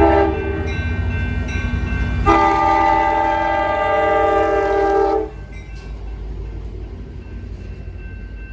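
Train horn sounding several notes at once: a short blast ending just under a second in, then one long blast of about three seconds, over a low rumble that carries on more quietly after the horn stops.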